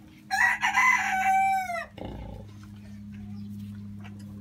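A rooster crows once, about a second and a half long, ending on a falling note. A low steady hum runs underneath.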